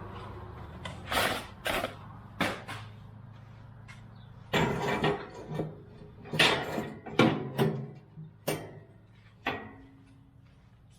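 Irregular knocks, clatters and rattles of grill parts being handled, about a dozen in all and unevenly spaced, the loudest between about four and eight seconds in.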